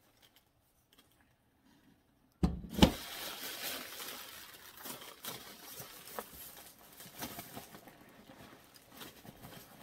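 Packing material being handled: a sudden loud crinkling rustle about two and a half seconds in, then lighter, irregular rustling with small clicks that slowly fades.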